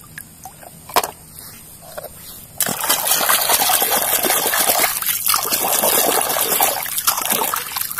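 Water splashing and sloshing as a plastic toy is swished back and forth by hand in muddy water to wash it. The splashing starts about two and a half seconds in, after a few light knocks.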